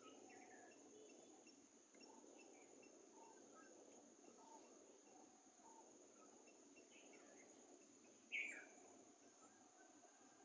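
Faint forest ambience: a steady high insect drone with scattered short bird calls and chirps. About eight seconds in, one louder call sweeps down in pitch, followed by a long faint whistle near the end.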